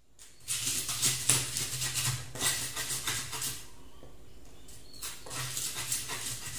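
Pestle grinding and scraping in a cobek mortar, crushing chili, garlic, shallots, candlenut and ginger with coarse salt into a spice paste. The strokes come about two or three a second, with a pause in the middle.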